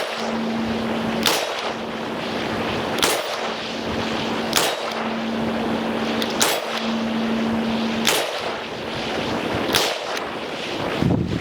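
Ruger GP100 seven-shot revolver firing .357 Magnum double action: seven shots, one every one and a half to two seconds, with wind on the microphone.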